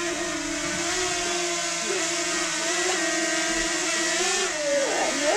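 Small quadcopter drone hovering close by, its propellers giving a steady whirring whine; near the end the pitch dips and wavers briefly as the drone shifts.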